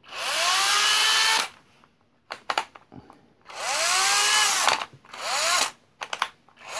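Cordless drill with no battery, its 18-volt motor fed about 13 volts from a halogen-lamp transformer through a diode bridge, run in three short trigger pulls. Its whine rises as it spins up and falls as it slows. Between runs there are a few clicks of the torque-adjustment collar being turned.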